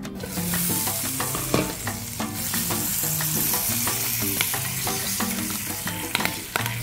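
Poblano peppers sizzling in butter in a frying pan, with sharp clicks of metal tongs against the pan as the peppers are turned. Background music plays underneath.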